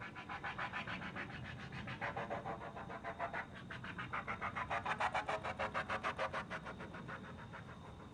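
Trumpet played with an extended technique: a rapid, rough pulsing of about seven pulses a second, noisy rather than a clear note. It swells to its loudest around the middle and fades near the end.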